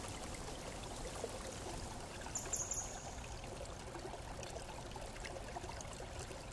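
A steady, faint trickling, water-like noise, with a brief high-pitched chirp and a few clicks about two and a half seconds in.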